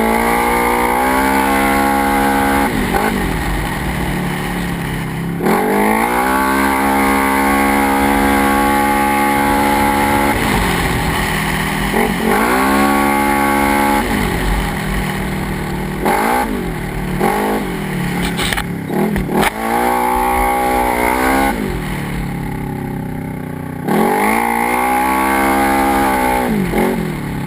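Polaris RZR XP 900 side-by-side's parallel-twin engine revving up and easing off over and over as it is driven, the pitch climbing, holding and falling every few seconds, with a few short throttle blips midway and a brief lull near the end.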